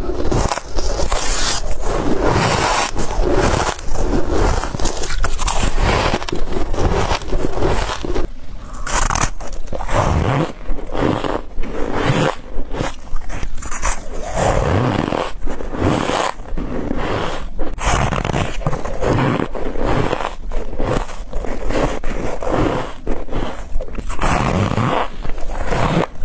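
Close-up biting and chewing of soft ice and freezer frost: a continuous, irregular run of squeaky crunches.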